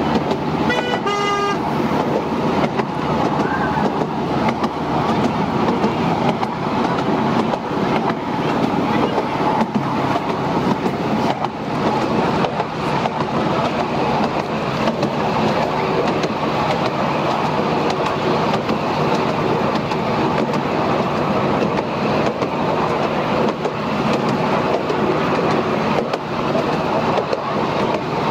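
Miniature railway train running along the track, a steady rumble and clatter heard from a passenger car, with a short toot from the locomotive about a second in.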